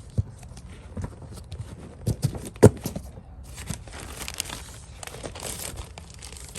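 Cardboard shipping box being unpacked by hand: packing tape tearing and packing paper crinkling and rustling, with scattered knocks against the box, one sharper knock about two and a half seconds in.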